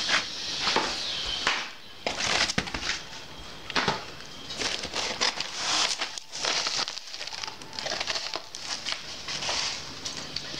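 Cardboard firecracker boxes being handled and moved about inside a cardboard carton: irregular rustling, scraping and light knocks of cardboard on cardboard.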